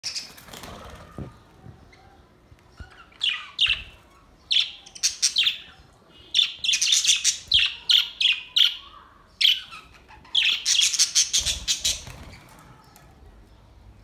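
A flock of budgerigars chirping and chattering in short, high-pitched bursts that come in clusters, with a flutter of wings near the start.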